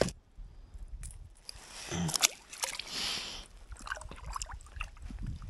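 Lake water sloshing and splashing as a hand dips over the side of an inflatable raft to release a small perch, with a short splash about three seconds in and scattered knocks and clicks from handling.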